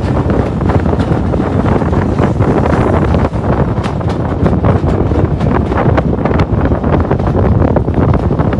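Wind buffeting the microphone out of a moving train's window, over the steady rumble of the carriages running on the track, with irregular clicks and clatter.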